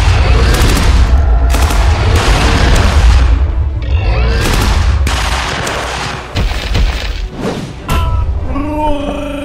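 Explosion and gunfire sound effects over background music: a sudden, heavy booming rumble with rapid crackle that runs about six seconds, then a couple more sudden booms near the end.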